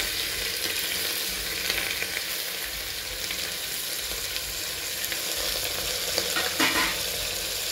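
Hot mustard oil sizzling steadily in a pressure cooker as grated onion is added to crushed garlic, ginger and panch phoron frying in it.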